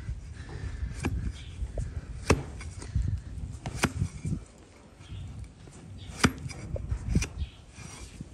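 Donkey's hoof being pared with a wide, flat steel trimming blade. The hoof horn gives sharp chopping cuts at irregular intervals, with a short lull about halfway through.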